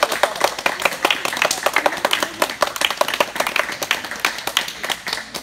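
Small crowd of spectators applauding: a dense, irregular run of hand claps that thins out near the end.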